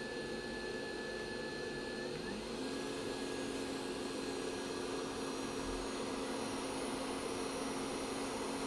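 JBC hot air rework station blowing a steady hiss of hot air at the connector, with a fan tone that rises and settles higher about two seconds in.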